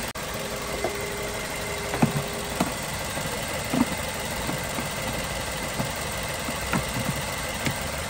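BMW engine idling steadily after its ignition coils and spark plugs have been replaced. A few sharp plastic clicks and knocks come as hands fit the plastic cowl cover back into place.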